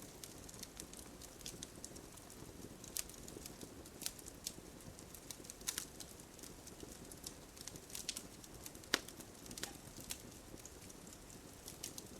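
Wood campfire burning with a soft steady hiss and irregular sharp crackles and pops, a few of them louder than the rest.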